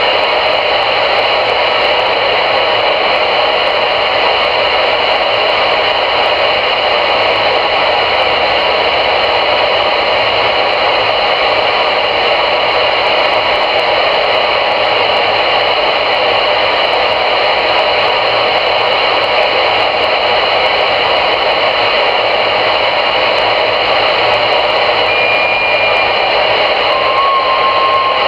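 CRE 8900 CB radio on channel 22 (27.225 MHz) giving out a steady, loud hiss of static through its speaker, with no station talking. Near the end a few faint, short whistle tones come through the hiss.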